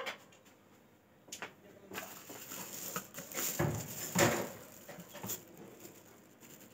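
Plastic bag crinkling and rustling around a glass jar as its screw lid is turned and the jar is picked up, loudest about three and a half to four seconds in.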